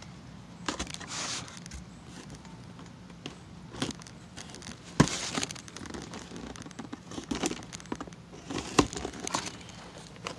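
A taped cardboard shipping box being torn open by hand: crinkling and ripping of tape and cardboard, with a few sharp knocks, the loudest about five seconds in and again near nine seconds.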